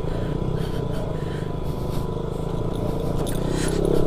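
Motorcycle engine running steadily while riding, with road noise, growing slowly louder toward the end.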